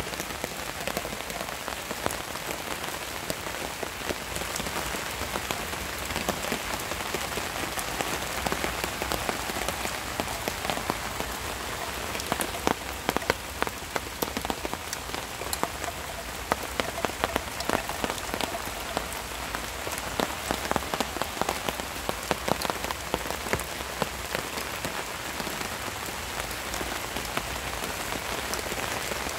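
Steady rain falling, with many sharp individual drops tapping, thickest through the middle.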